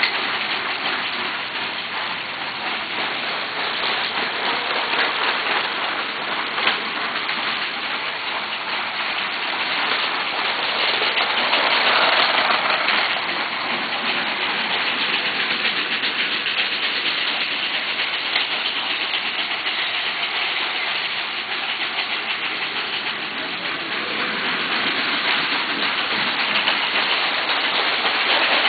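Lego 12-volt toy trains running on their track: a steady running noise of small electric motors and wheels that swells about twelve seconds in and again near the end.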